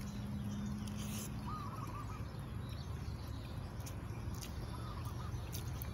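Wind rumbling on the microphone, with a bird giving two short warbling calls a few seconds apart and a faint steady hum that stops after about a second and a half.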